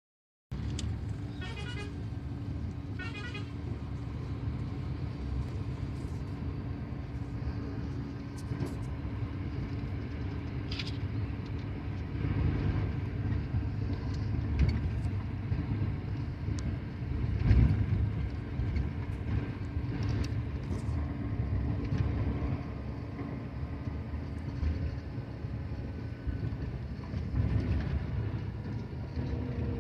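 Steady low engine and road rumble heard from inside a moving bus, with a short warbling horn sounding twice in the first few seconds.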